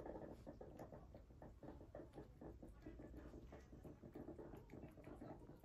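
Domestic cat eating from a bowl: faint, quick, irregular chewing and licking clicks.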